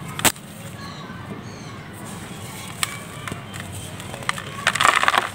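A hand-held slab of dried gachi clay snaps once, sharply, about a quarter second in; near the end the piece is squeezed in the fist and crumbles into powder with a dense, crackly crunch.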